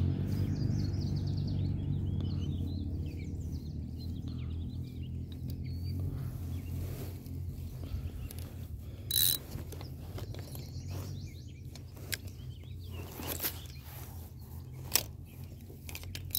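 Birds chirping over a steady low hum in the first few seconds, then several sharp clicks or taps, the loudest about nine seconds in.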